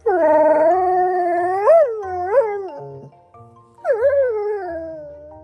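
German Shorthaired Pointer howling in a vocal tantrum: a long wavering howl that jumps up in pitch twice near its end, then after a short break a second, shorter howl that slides downward.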